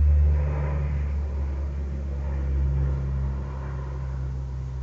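Aircraft flying over: a low, droning rumble with a steady hum in it, loudest at the start and slowly fading.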